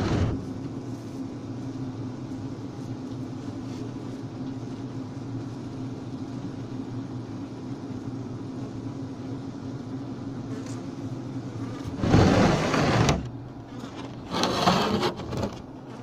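Steady low hum of a honeybee colony inside a frameless hive, with two louder noisy spells of about a second each near the end.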